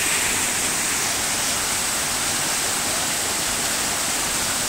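Waterfall crashing down onto rocks close by: a steady, hissing rush of falling water.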